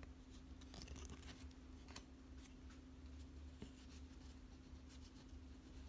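Faint rustles and light scrapes of Pokémon trading cards being handled and slid across a surface, over a steady low hum.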